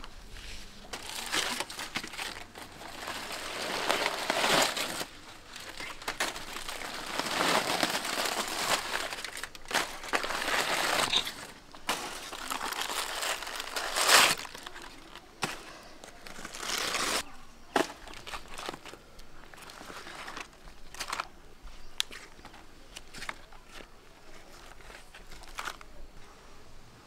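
Aluminium foil and banana-leaf wrapping crinkling and crackling as they are peeled by hand off a whole baked fish, in irregular bursts that thin out to a few scattered crackles in the last third.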